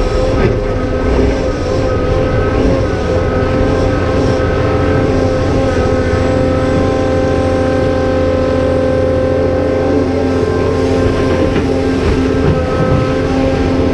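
Cat 390F excavator's diesel engine and hydraulic pumps working hard under load, a loud, steady engine note with the pumps and valves working along with it.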